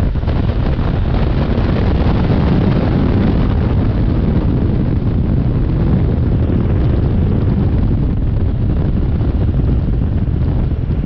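Steady wind rushing over the microphone of a camera on a moving motorcycle, with the BMW F850GS's engine running underneath.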